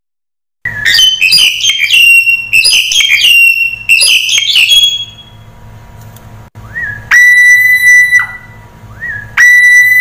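Black-collared starling calling: a run of loud, harsh chattering notes for about four seconds, then two long, steady whistles, each led in by a short rising note and ending in a quick downward slur.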